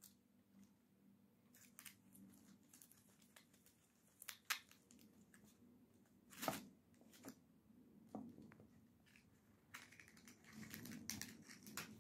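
Red squirrel gnawing at a corn cob and pulling at its dry husk: faint scattered clicks and crinkling, with a couple of sharper cracks around the middle and denser rustling near the end.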